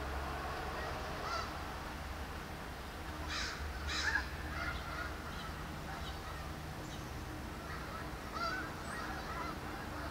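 Birds calling in short arched calls, repeated every second or so, with two louder calls about three to four seconds in, over a steady low rumble.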